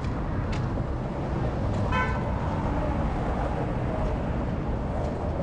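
Steady downtown street traffic noise, with a short high-pitched toot about two seconds in.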